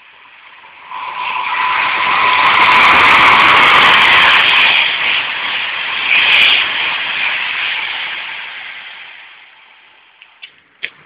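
Virgin Class 390 Pendolino electric train passing through the station at speed: a rush of wheels and air that swells over about a second, stays loud for several seconds, then slowly fades away. A steady whine sounds over the rush as it comes in.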